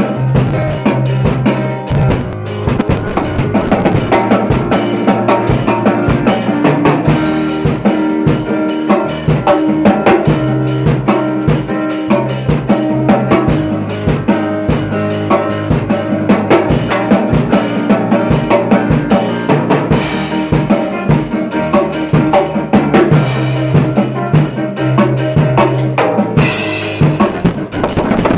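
Loud band music driven by a drum kit, with busy kick, snare and rimshot hits over a held bass line.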